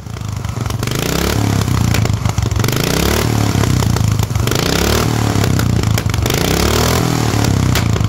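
A 12 hp Briggs & Stratton flathead lawn mower engine running steadily and loud through a motorbike-style exhaust can.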